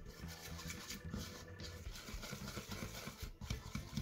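Spatula stirring green-tinted glue in a plastic bowl: faint, irregular scraping and small clicks.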